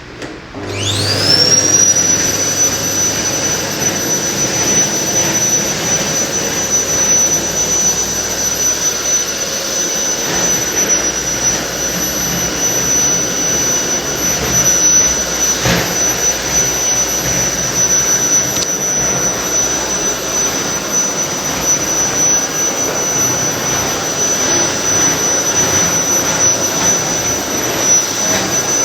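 Vacuum cleaner switched on about half a second in: its motor spins up quickly to a high, steady whine over a rush of airflow and keeps running.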